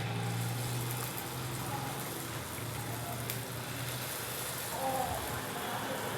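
Hot ghee sizzling in a kuzhi paniyaram pan on the stove, a steady crackling hiss over a steady low hum.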